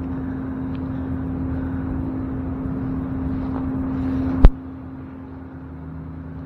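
Steady vehicle running noise: a low rumble with a constant hum. A single sharp, loud knock about four and a half seconds in, after which the rumble is quieter.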